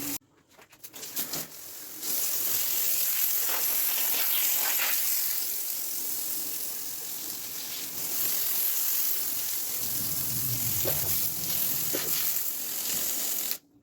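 Water spraying from a hose hand-gun nozzle, a steady loud hiss. It starts after a brief pause about two seconds in and cuts off suddenly near the end, as the trigger is released.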